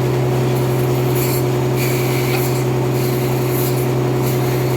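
Sawmill saw running steadily through a trembesi (rain tree) log while sawing it into wide slabs. There is a constant low machine hum, with brief hissy flares from the blade cutting the wood.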